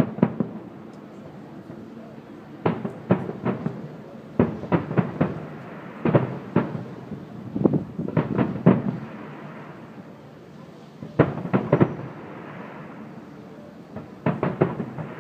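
Aerial fireworks shells bursting: groups of sharp bangs every one to three seconds, about seven groups in all.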